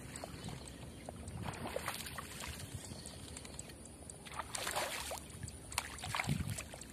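A hooked snakehead thrashing and splashing at the water surface in several bursts, the loudest about four and a half and six seconds in.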